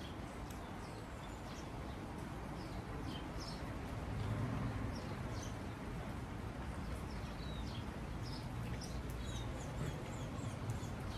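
Small birds chirping and calling, many short high chirps and quick falling whistles scattered throughout, over a steady low background rumble.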